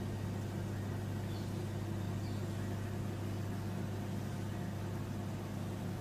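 Microwave oven running: a steady low electrical hum from its transformer, fan and turntable motor while it heats a plate of dried fryums.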